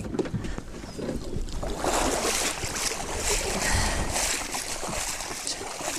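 Water splashing and sloshing as a bag of fish scraps is shaken in the sea alongside the boat, heaviest from about two seconds in.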